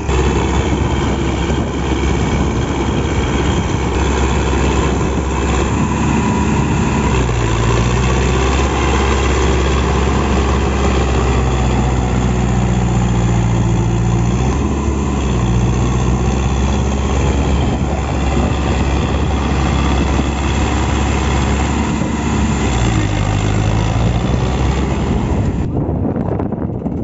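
Sonalika DI 750 III RX tractor's diesel engine running hard and steadily, its note rising and falling a few times as it works to pull the tractor and trailer out of deep mud.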